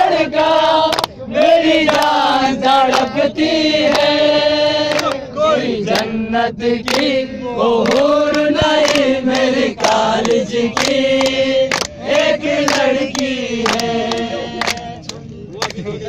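A group of men singing a Balti ghazal together in long, wavering held notes, with sharp hand claps keeping time.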